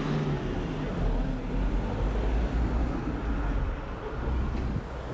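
Motor traffic: a vehicle's engine running close by, a steady low rumble with road noise.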